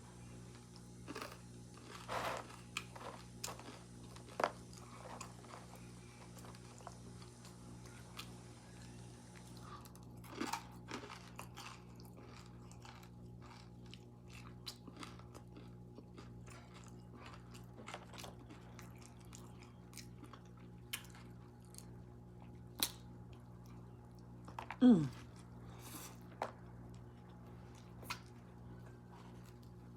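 Mouth sounds of a person eating a chili dog and burnt fries: chewing, crunching and wet lip-smacking clicks scattered throughout, over a steady low hum. About 25 seconds in comes one short, loud vocal sound that falls in pitch.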